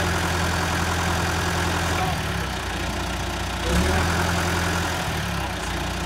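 John Deere 450H crawler dozer's diesel engine running at idle. Twice it swells louder with a deeper note for about two seconds: once at the start and again from a little before four seconds in.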